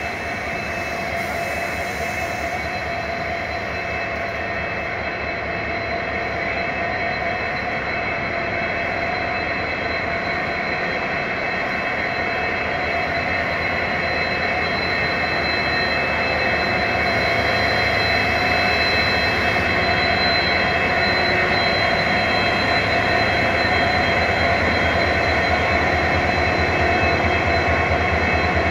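Indian Railways WDG4 diesel-electric locomotive running as it moves slowly past, its EMD two-stroke diesel engine giving a steady drone with a high steady tone over it. The sound grows gradually louder as the locomotive draws near.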